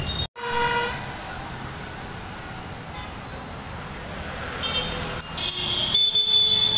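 Street traffic of motorbikes, scooters and cars on a wet road, a steady noise, with a vehicle horn tooting briefly just after a short cut in the sound near the start. More short horn toots come near the end.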